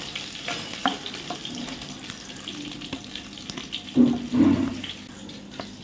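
Hot oil sizzling and crackling as whole koi fish (climbing perch) shallow-fry in a kadai, with a louder knock about four seconds in.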